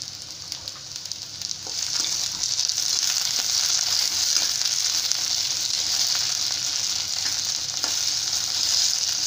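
Chopped okra, onion, green chillies and tomato sizzling in hot oil in a stainless steel pan, stirred with a spatula that scrapes lightly against the pan. The sizzle grows louder about two seconds in and then holds steady.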